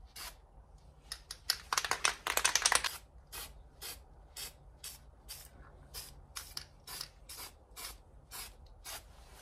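Aerosol can of spray gasket sealant spraying in short spurts: a denser run of bursts about two seconds in, then brief puffs two or three a second. The can is running nearly empty.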